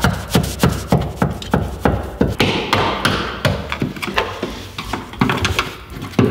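Background music with a quick, even clicking beat, about four or five knocks a second.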